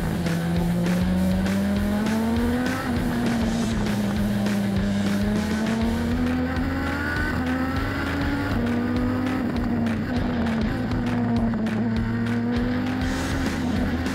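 Onboard sound of a Super Formula car's Honda 2.0-litre turbocharged four-cylinder engine under racing load. The engine note climbs with the revs and drops back sharply at several gear changes.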